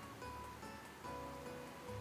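Background music: a melody of short held notes over a repeating low bass.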